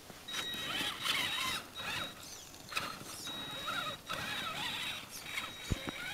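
Electric radio-controlled monster truck driving through snow: a steady high whine from the motor and speed controller, with squealing pitch that rises and falls as the throttle is worked. A short knock near the end.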